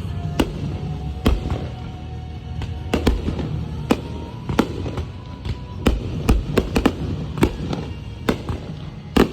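Fireworks bursting in quick, irregular succession: many sharp bangs, about two a second, over a continuous low rumble.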